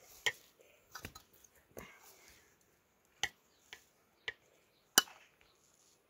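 Perforated metal skimmer scooping cooked rice out of a metal pot onto a metal plate, knocking against the rims in several sharp clinks, the loudest about five seconds in.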